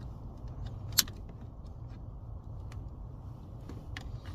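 Small clicks from handling the multifunction switch's plastic electrical connectors: one sharp click about a second in and a few fainter ones later, over a steady low hum.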